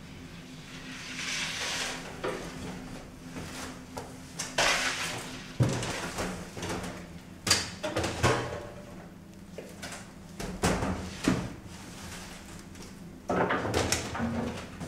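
Irregular knocks and clattering as bakers work a deck oven, handling trays, oven doors and loaves of bread, over a steady low hum.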